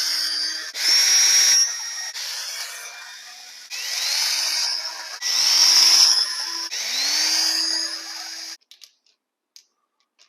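Cordless power driver running in about six short bursts, each starting with a rising whine, as it spins out bolts during the teardown of a 5.3L LS engine. It stops suddenly well before the end.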